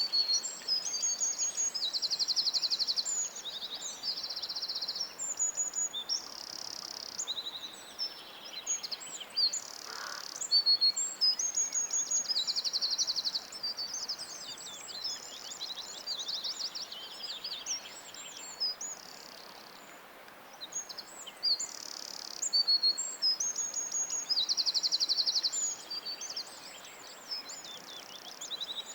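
Several songbirds singing at once: a dense mix of high chirps and whistled phrases, with a fast, buzzy trill coming back three times.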